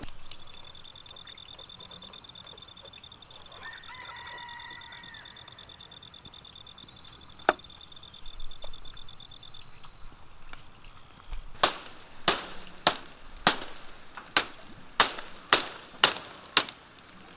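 About ten sharp knocks, roughly two a second, in the second half: bamboo being struck as the cage frame is worked. Before them a steady, high, pulsing insect trill runs for several seconds, with a short bird call in the middle of it and a single click.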